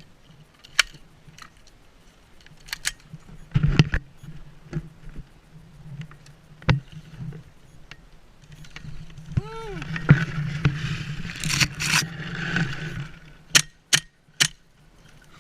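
Scattered sharp cracks and clicks of airsoft guns firing single shots, with a busier patch of shots and rustling in the middle and a short shout about halfway through.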